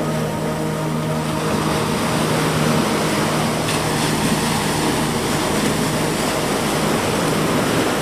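Small ocean waves breaking and washing up over a sandy beach: a steady, even rush of surf.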